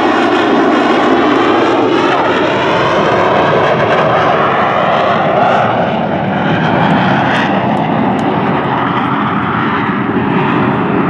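The single Rolls-Royce Viper turbojet of an Aermacchi MB-339 PAN jet trainer, running loud and steady as the aircraft flies past, its tone shifting and wavering as it goes by.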